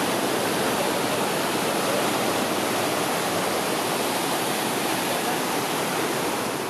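Snowmelt-fed mountain creek rushing over boulders in whitewater rapids, a steady loud rush of water that fades out near the end.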